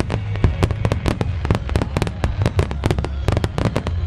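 Starmine fireworks barrage: shell bursts in rapid succession, many a second, over a continuous low rumble.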